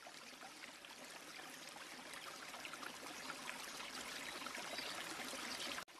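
Water trickling and lapping at the surface, a faint steady patter of small splashes that grows a little louder and then cuts off suddenly near the end.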